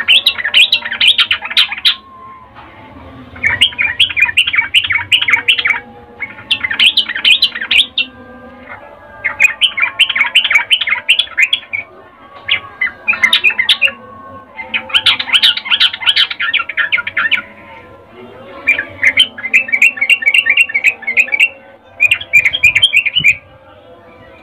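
Yellow-vented bulbul (trucukan) giving about nine bursts of rapid, high chattering notes, each burst one to three seconds long with short pauses between. This is the female's breeding-season call, used as a lure to set males singing.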